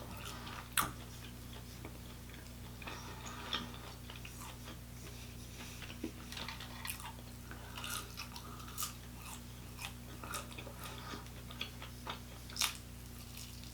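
Close-miked eating of a Buffalo Wild Wings chicken wing: scattered small bites, crisp crunches and wet chewing clicks, over a steady low hum.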